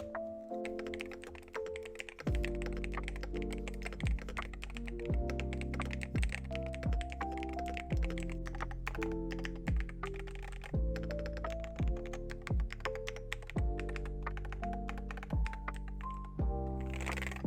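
Fast typing on an Aula Hero68 HE magnetic-switch keyboard, a rapid patter of key clicks. Background music runs under it, with a heavy bass beat coming in about two seconds in.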